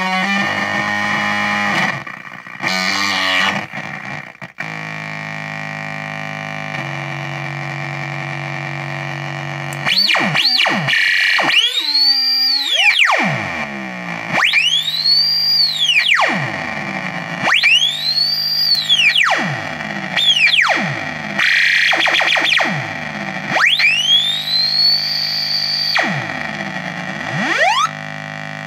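Electric guitar through a fuzz pedal built from two Tim Escobedo Ugly Face circuits running in parallel: a distorted chord, then a steady buzzy drone, then from about ten seconds in a squealing oscillation whose pitch sweeps high and falls back low over and over, every few seconds, as the pedal's knobs are turned.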